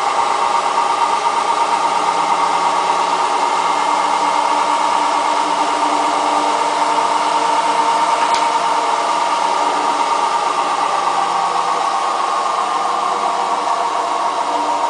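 Hotpoint Ultima WT960 washing machine spinning, a loud steady mechanical roar with a strong high hum and one brief tick about eight seconds in; the owner believes the drum bearings are gone.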